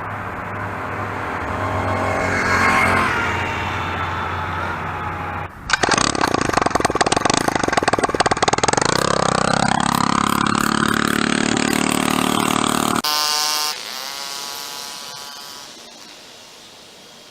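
Huasheng 49cc four-stroke bicycle engine revving up and down through its stock muffler. About five and a half seconds in the sound cuts to the same engine with the muffler removed, much louder and harsher, a rapid rattle of open exhaust pulses as it revs. It cuts off sharply about thirteen seconds in, leaving a quieter engine sound that fades away.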